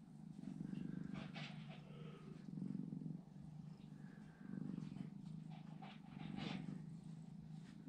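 Young kitten purring in soft swells that rise and fall about once a second.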